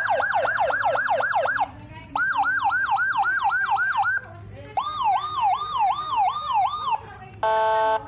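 Whelen Gamma 2 electronic siren through a motorcycle-mounted horn speaker, switched from tone to tone: three short runs of fast rising-and-falling wails with brief breaks between, the third lower and slower. Near the end comes a steady chord-like horn blast.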